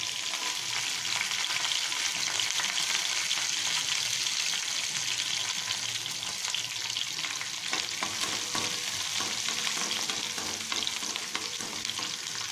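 Garlic cloves and ginger sizzling steadily in hot oil in a granite-coated kadai. In the second half a steel slotted spoon scrapes and clicks against the pan as they are stirred.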